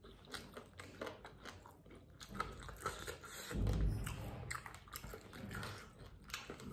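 Close-up chewing and biting of pieces of masala chicken fry: a run of short wet clicks and small crunches from the mouth, with a louder low sound near the middle.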